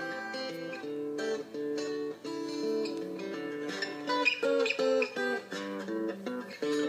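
Instrumental background music, a melody of short notes over chords.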